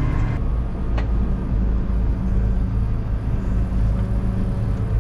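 Massey Ferguson tractor's diesel engine running steadily under load while pulling a wheeled harrow, heard from inside the cab as a low, even drone. A single short click about a second in.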